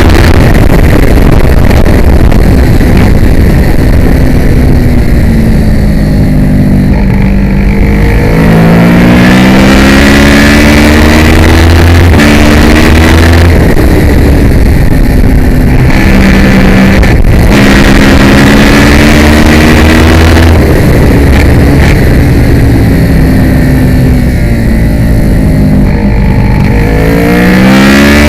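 Kawasaki ER6 race bike's 650 cc parallel-twin engine at racing speed, heard from onboard: revs climb hard in repeated runs, each broken by short drops, then fall away before the next climb.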